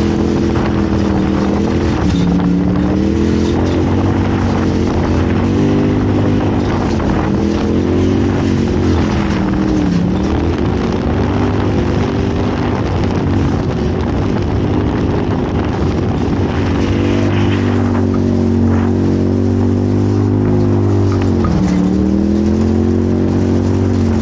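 Off-road race vehicle's engine running hard, heard on board, its pitch rising and falling with the throttle and dipping sharply three times. A constant rushing, rattling noise runs over it.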